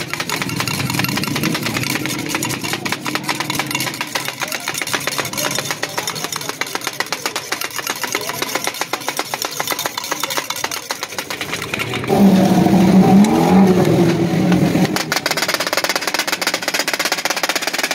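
Metal spatulas clattering and scraping rapidly on a large flat iron tawa while sliced onions sizzle in oil. About twelve seconds in, a louder engine-like hum joins for roughly three seconds.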